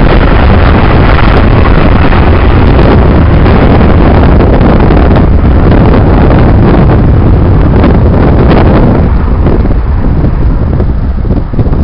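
Airbus A330 twin-engine jet airliner at takeoff power: a loud, steady roar mixed with wind buffeting on the microphone. From about nine seconds in, the upper part of the roar fades and the level starts to dip.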